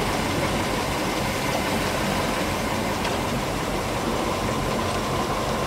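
A boat's engine running steadily at idle, under an even rushing noise.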